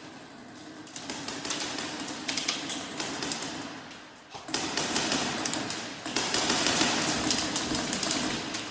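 Airsoft guns firing in rapid strings, a dense clatter of clicks over the noise of movement, in two spells with a short lull about four seconds in.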